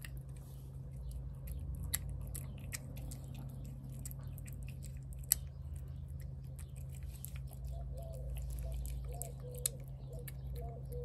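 A cat chewing and biting wet shredded meat from a plate, with irregular short, sharp chewing clicks. A steady low hum runs underneath.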